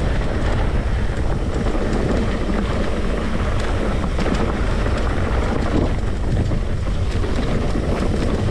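Mountain bike rolling fast down a dirt trail: a steady roar of wind on the microphone and tyres on the ground, with scattered small rattles and knocks from the bike.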